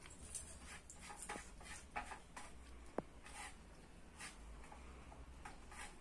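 A budgerigar pecking and moving about in its wire cage: faint, scattered ticks and clicks, with one sharper click about three seconds in.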